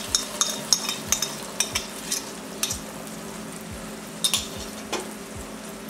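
Beaten egg sizzling as it hits hot melted butter in a nonstick wok, a steady frying hiss with sharp ticks scattered through it, thickest in the first two seconds and again around four seconds in.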